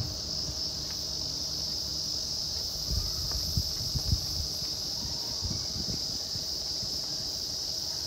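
A steady chorus of summer cicadas in the forest, one continuous high buzz at an even level, with a few soft low thumps in the middle.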